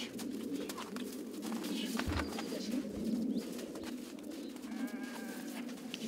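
Pack donkeys' hooves and people's footsteps crunching and clicking on snow, over a steady low rushing noise, with a brief call about five seconds in.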